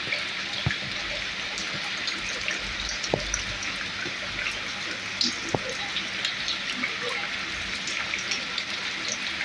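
Heavy rain falling steadily, a dense even hiss dotted with the clicks of single drops striking close by.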